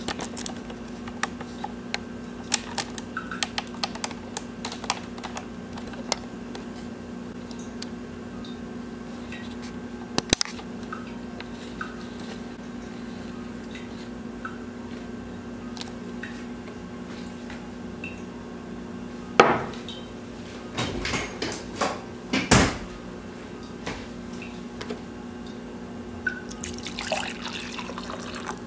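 Light clinks and taps of a ceramic mug and metal spoon on a wooden table over a steady low hum, with a few louder knocks about two-thirds of the way in. Near the end, liquid is poured into the mug.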